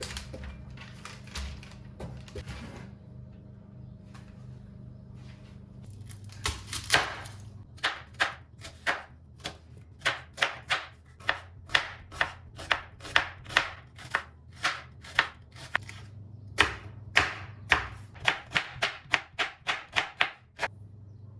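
Knife chopping on a cutting board: a few soft knocks at first, then from about six seconds in a steady run of sharp chops, about two a second.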